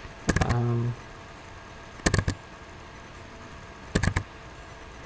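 Computer mouse double-clicks opening folders one after another: a quick group of clicks about two seconds in, another about four seconds in, and a third starting at the very end. Just after the start a man gives a brief hummed "mm".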